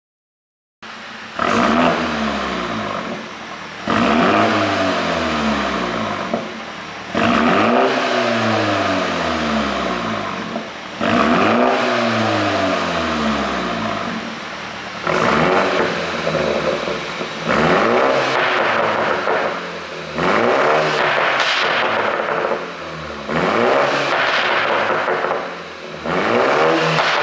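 BMW Z4 sDrive20i's turbocharged 2.0-litre four-cylinder engine, running a pop-and-crackle ECU tune, is revved hard and let fall back about nine times, roughly every three seconds. The revs rise sharply, then come down with popping and crackling on the overrun.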